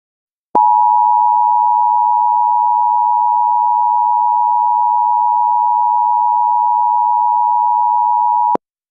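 Emergency Alert System attention signal: a loud, steady two-tone sound held for about eight seconds, starting abruptly under a second in and cutting off sharply near the end. It signals that an emergency message follows.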